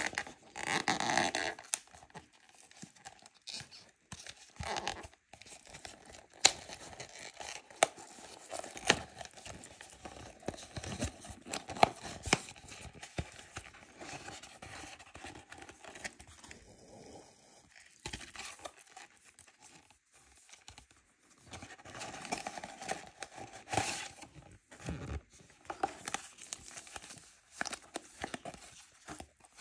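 Cardboard blister pack being torn open by hand, with irregular tearing, creasing and clicking of the card, then foil sticker packets crinkling as they are handled.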